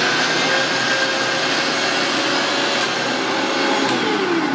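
Electric mixer grinder running at full speed, grinding chopped onions, tomato, ginger and garlic with a little water into a paste. It is switched off about four seconds in, and its pitch falls as the motor spins down.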